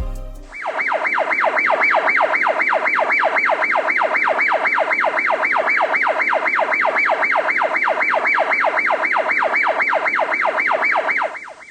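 Electronic siren in a fast yelp pattern, each note sweeping up and falling back in pitch about three times a second, steady throughout, starting about half a second in and cutting off abruptly just before the end.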